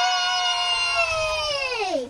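A child's high voice holds one long wailing note, then slides steeply down in pitch near the end, like vocal play while moving toy motorcycles.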